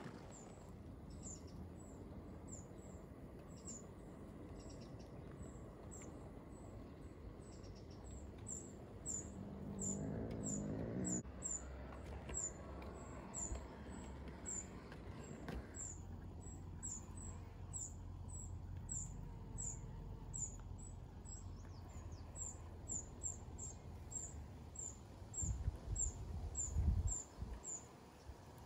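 A bird repeating a short, very high chirp about twice a second, over the low running rumble of a model train. The rumble grows louder near the end as the Class 47 locomotive passes close by.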